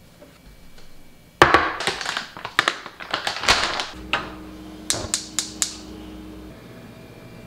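A run of loud kitchen clattering and knocking, then a gas stove burner's igniter clicking four times in quick succession over a low steady hum before the burner lights.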